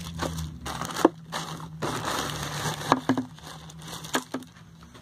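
Plastic bags crinkling and rustling as they are handled, with a few short sharp crackles.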